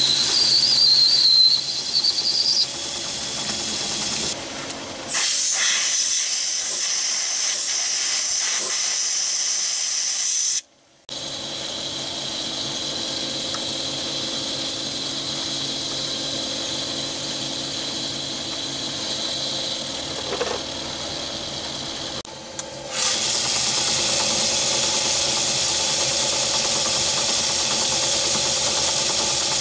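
Metal lathe running and boring out the inside of a metal tube with a boring bar, a steady hiss with a high whine over it. The sound changes abruptly a few times and drops out briefly near the middle.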